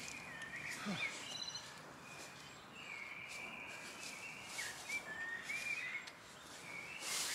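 Small birds singing in woodland, short whistled phrases again and again, over the scuffs and rustles of a person handling a heavy motorcycle on the forest floor, louder near the end.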